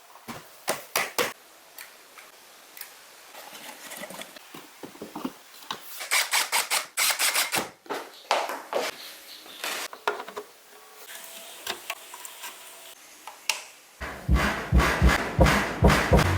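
Scattered sharp clicks, taps and knocks, like small hand work on a workbench. About two seconds before the end, loud music with a heavy, thumping bass line starts.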